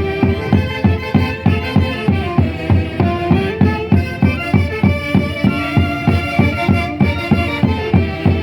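A band playing dance music: a melody held over a steady, evenly pulsing beat.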